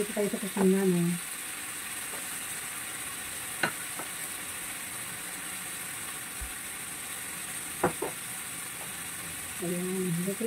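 Minced pork frying in oil in a wok: a steady sizzling hiss, with two sharp clicks about three and a half and eight seconds in.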